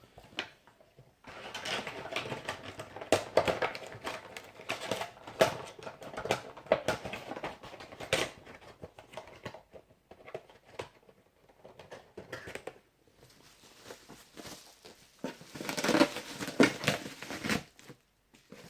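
Packaging being handled: irregular crinkling and clicking of the Funko Pop box's plastic and cardboard, in two spells with a quieter stretch between them.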